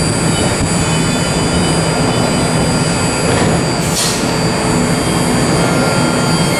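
BART electric train running along the platform track: a steady rumble with an electric whine of several steady high tones, and a brief hiss about four seconds in.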